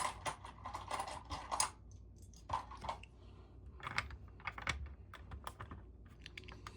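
Plastic LEGO bricks clicking and clattering as they are handled and pressed onto a build: an irregular run of small, sharp clicks.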